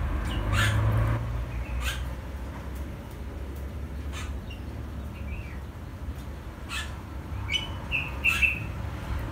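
Small songbird giving short, sharp chirps every second or two, with a few brief pitched notes near the end, over a steady low rumble.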